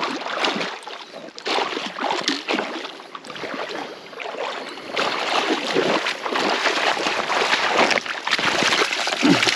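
Water splashing and sloshing in irregular bursts as a hooked fish thrashes at the surface during the fight. It starts suddenly.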